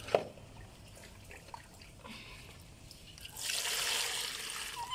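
Water poured from a plastic scoop onto a baby monkey splashes into a plastic basin of water, a hissing wash that starts about three seconds in. A short sharp sound comes just after the start.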